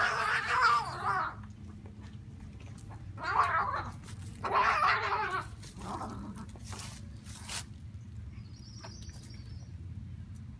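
Cats fighting, with three loud bursts of yowling and screeching and a fainter one after: a mother cat defending her kittens against another cat.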